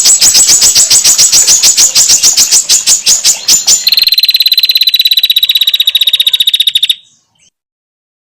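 Female prinia (prenjak) call: a loud, rapid run of sharp ticking notes, several a second. About four seconds in it changes to a faster, higher, even trill. The calling cuts off suddenly about seven seconds in.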